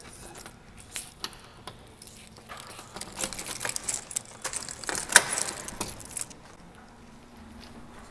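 A bunch of keys jangling and clinking as they are handled, with scattered sharp clicks and a busier stretch of jingling in the middle, the loudest clink about five seconds in. The jingling dies down about six seconds in.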